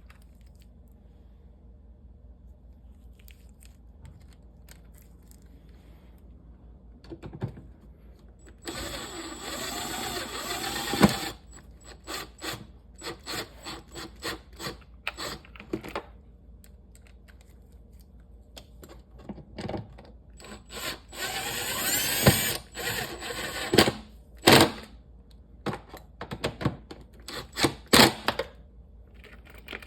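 Impact driver with a magnetic socket attachment running in two short spurts, about nine and twenty-one seconds in, driving the air filter housing cover screws back in. Sharp clicks and knocks of handling come between and after the spurts.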